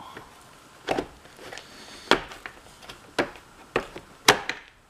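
Plastic housing of an electric chainsaw being handled during reassembly: about five sharp clicks and knocks, roughly a second apart, the loudest near the end.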